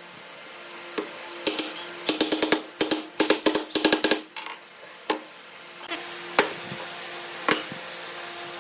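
Quick runs of hard wooden knocks and taps, several strikes in a burst, thinning to single knocks in the second half, over a steady low hum.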